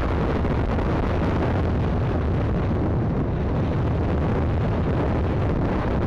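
Steady wind buffeting the microphone of a 50cc motorcycle riding at speed, a continuous low rushing noise with no breaks.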